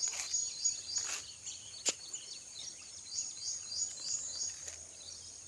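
Outdoor field ambience: insects chirping in short high pulses about three times a second over a steady high drone. A few soft knocks come in the first two seconds.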